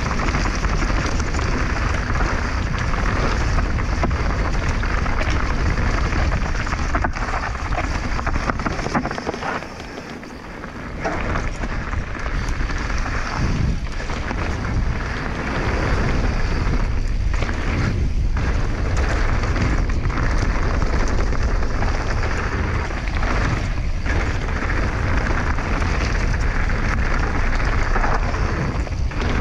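Wind buffeting the microphone and tyres running over the trail during a fast mountain-bike descent, a dense rumbling rush. It drops away for about two seconds around ten seconds in, then picks up again.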